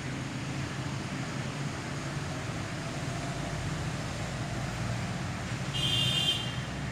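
Steady low rumble of outdoor background noise, with one short, harsh, buzzy call about six seconds in, the loudest sound here.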